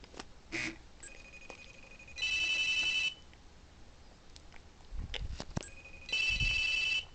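High-pitched electronic alert tone sounding twice, each burst just under a second long and about four seconds apart, with a couple of low knocks between them.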